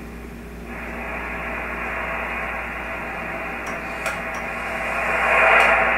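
Receiver static from a Yaesu FT-817 transceiver's speaker: hiss that comes up about a second in and swells louder about five seconds in as the magnetic loop antenna is tuned toward resonance. The rise is the peak in the noise that shows the loop is close to tune.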